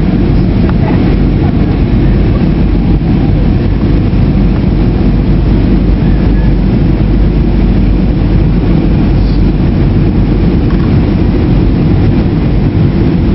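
Airliner cabin noise in flight: the steady, deep drone of the jet engines and rushing air heard from a window seat.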